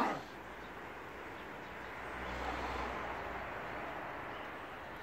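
A puppy's play-growl cutting off right at the start, then steady low outdoor background noise with a low rumble that swells a little around the middle and fades.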